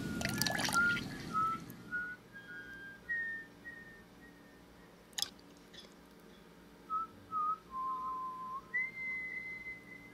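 A person whistling a slow tune, clear single notes held and stepping up and down in pitch. A few sharp clicks come near the start and one more about halfway through.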